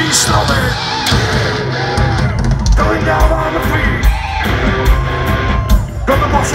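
A heavy metal band playing live and loud, with distorted electric guitars, bass and heavy drums.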